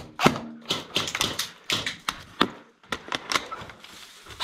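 A quick, irregular series of sharp clicks and knocks, some twenty in about four seconds, with a short pause near the middle.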